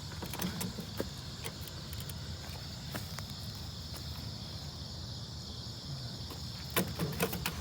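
Steady chirring of crickets over a low, even engine rumble, with a few scattered clicks and knocks and a quick cluster of them near the end.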